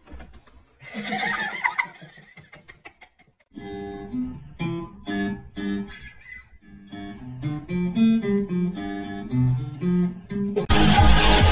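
A cat's short hissing yowl while two cats scuffle. Then gentle plucked acoustic guitar music, which about three-quarters of the way through cuts to loud electronic dance music.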